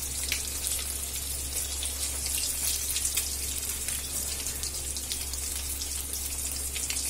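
Masala-coated fish frying in hot oil in a kadai: a steady sizzle with fine crackling, over a steady low hum.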